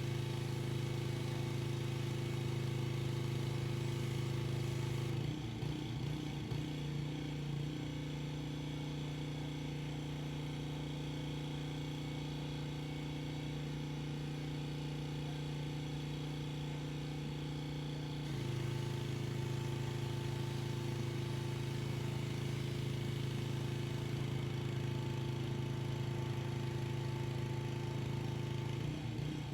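Pressure washer's engine running steadily. Its note dips and gets a little quieter about five seconds in, then comes back up and louder about eighteen seconds in.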